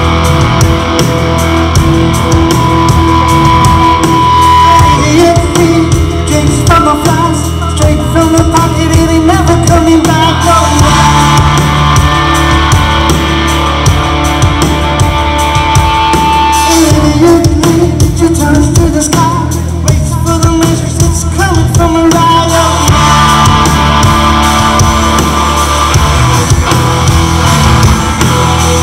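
Live rock band playing at full volume: electric guitars, bass guitar and drum kit, with held lead notes over a steady beat.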